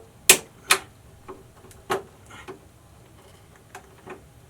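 Sharp clicks and taps of hands and a tool working at a tight cable lock piece in an electrical subpanel. Three louder clicks come in the first two seconds, then lighter, scattered taps.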